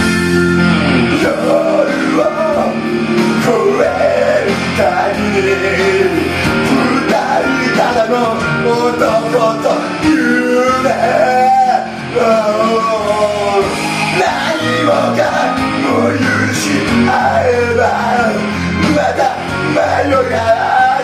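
A man singing karaoke into a handheld microphone over a backing track with guitar.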